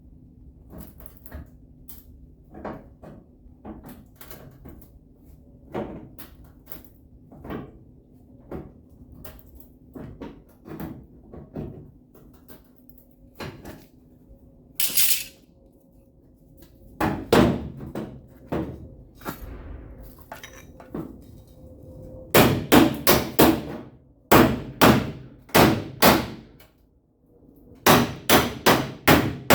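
Hammer striking the sheet-metal quarter panel of a Dodge Ram pickup against a dolly to level out a dent. Light, scattered taps at first; then, from about halfway, louder quick runs of blows, several a second.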